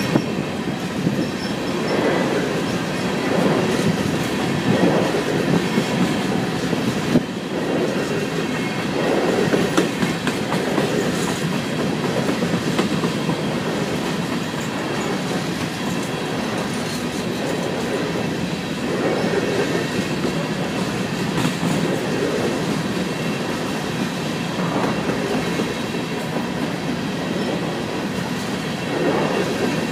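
Empty steel coal hopper cars of a freight train rolling past, their wheels running over the rails in a steady rumble that swells and fades as the cars go by.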